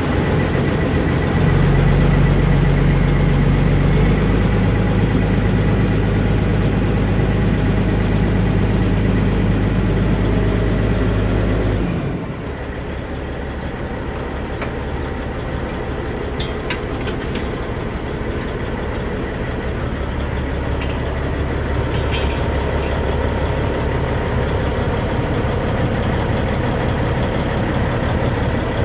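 Tipper truck's diesel engine running steadily. About 12 seconds in its sound drops in level and changes to a deeper, rougher steady running, with a few light clicks later on.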